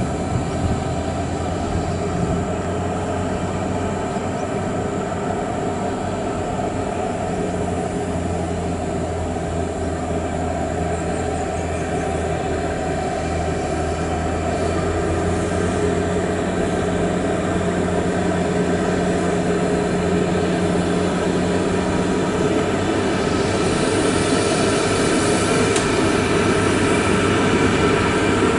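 Volvo FH16 heavy truck's 16-litre straight-six diesel running with a steady low drone as the truck drives slowly with its dump trailers, growing louder near the end as it comes close.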